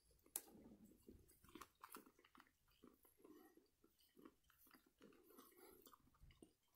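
Faint chewing and crunching of a dried Carolina Reaper pepper and a superhot-coated peanut in the mouth, irregular small crunches with one sharper click about a third of a second in.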